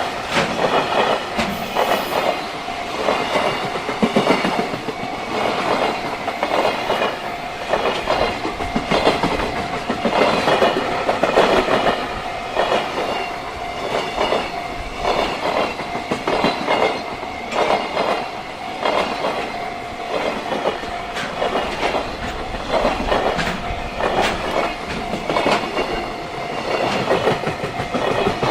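JR Freight container train running past at speed, its wagon wheels clacking over the rail joints in quick groups, with a level-crossing warning bell ringing steadily.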